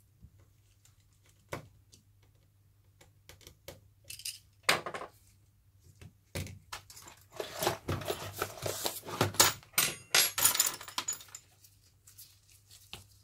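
Handling noise from an iPhone 6 being closed up by hand: scattered small clicks and taps, then a few seconds of denser clicking and crinkling as the screen is pressed into the frame and a paper sheet of warranty stickers is handled.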